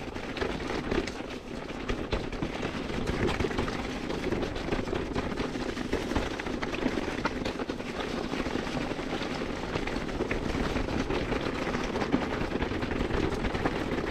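Mountain bike riding fast down a rough, stony singletrack: a steady rush of tyre and wind noise, peppered with many small knocks and rattles from the bike over the rocks.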